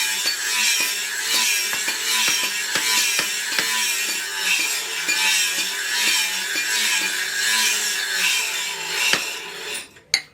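A hand tool drawn back and forth in steady rhythmic strokes, about two a second, in a sawing motion; the strokes stop near the end, followed by a couple of sharp knocks.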